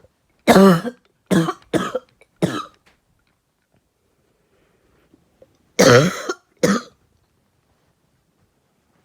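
A person coughing on bong smoke: a quick run of four coughs, then a pause of about three seconds and two more coughs.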